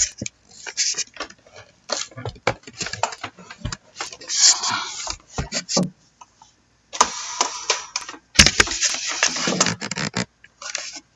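Scattered clicks of a computer mouse and keyboard, between a few stretches of rustling noise lasting about a second each.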